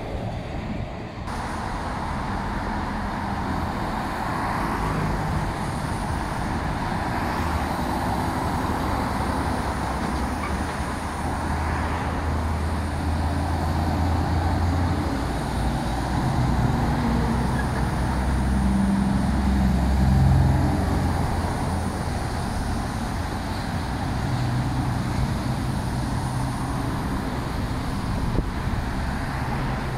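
Steady road traffic with heavy diesel trucks driving past; a truck engine's low drone comes and goes, loudest about twenty seconds in.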